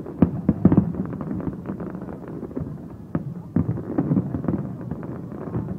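Fireworks exploding in quick clusters of bangs and crackles, one cluster about half a second in and another from about three seconds in.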